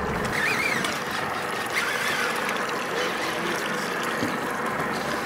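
Steady, even wash of water around a small boat at sea.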